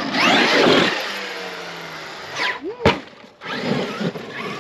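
Traxxas X-Maxx electric RC monster truck driving on dirt, its motor whine rising as it accelerates. There is a single sharp crack a little under three seconds in.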